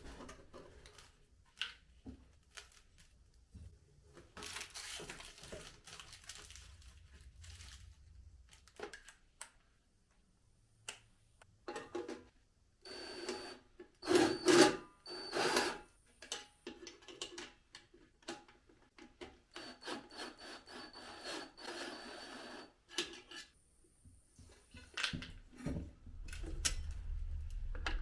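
Hand work on materials: stretches of rubbing and scraping broken by scattered clicks and knocks, the loudest knocks about halfway through. A low hum sets in near the end.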